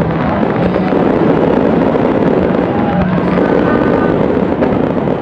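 Fireworks going off close by: a loud, dense crackle of many small pops and bursts in rapid succession, without a break.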